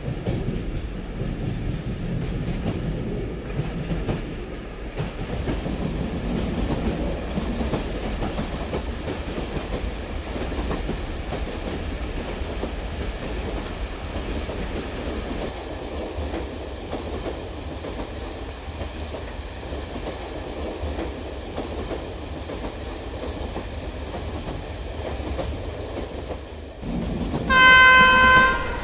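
Toy model train running along its track, a steady rattling whir full of small clicks; near the end its horn sounds once, a single steady tone lasting about a second.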